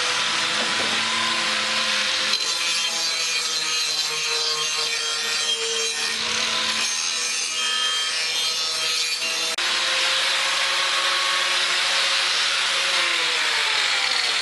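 Handheld 4.5-inch angle grinder running and grinding the cutting edge of a steel lawnmower blade to sharpen it, with a wavering motor whine. The grinding turns harsher and grittier from about two seconds in until nearly ten seconds in.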